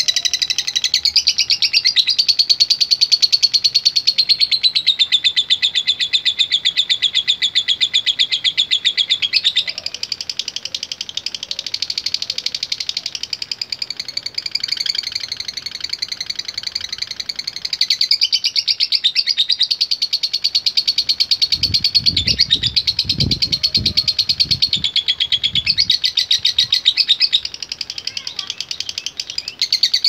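Lovebird chattering in a long, unbroken, rapid trill, shifting in pitch now and then. A few low thumps sound about three-quarters of the way through.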